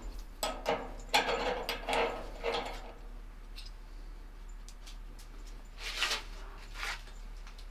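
A hex key unscrewing and removing a threaded metal plug from a gas heater's natural gas inlet: metal clicking and rattling for about two seconds, then a few single clicks.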